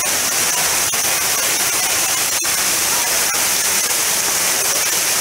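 Heavy rain pouring down onto a flooded street, a loud, steady hiss. A few sharp clicks cut through it, the sharpest about two and a half seconds in.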